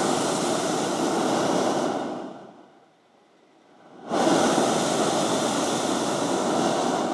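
Hot-air balloon's propane burner firing in two long blasts, each a steady loud rush of noise. The first cuts off about two and a half seconds in, and after a short quiet gap the second starts about four seconds in.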